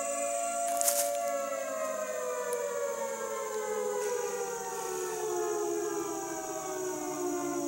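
Air-raid siren wailing, its pitch slowly falling. A single short sharp crack about a second in.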